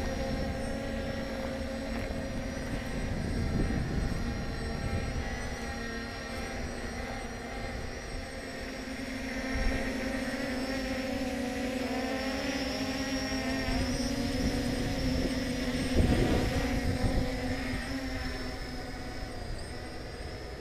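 Ao Sen Ma CG035 quadcopter's brushless motors and propellers buzzing in flight, in several steady tones that waver in pitch as the motors change speed. There is a brief thump about three-quarters of the way through.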